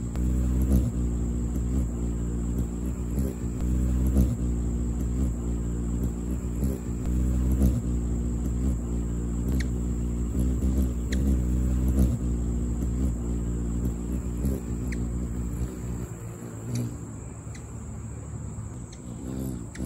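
Ruby-throated hummingbird's wings humming as it hovers at a hand-held nectar feeder: a steady low buzz that wavers slightly as the bird shifts position and fades about sixteen seconds in. A few faint short high ticks sound over it.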